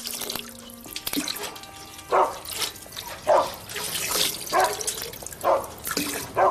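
Water gushing from a hand pump's spout into a metal tub, with a short squeaky sound about once a second from about two seconds in.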